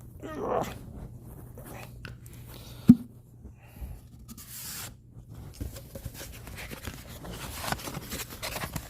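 Handling of a merchandise box and its contents: scattered light clicks and a short rustle, with one sharp, loud knock about three seconds in. A brief wavering whine comes just after the start, and a steady low hum from a charger runs underneath.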